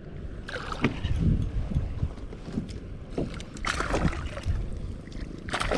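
Sea water lapping and sloshing against a plastic fishing kayak's hull in several short bursts, over a low rumble of wind on the microphone.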